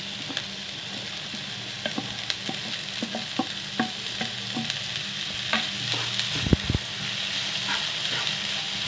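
Cut okra dropped into a pan of hot oil and frying onions, sizzling steadily, with scattered clicks and taps as pieces fall and a wooden spatula pushes them off a steel bowl. A louder knock comes about six and a half seconds in.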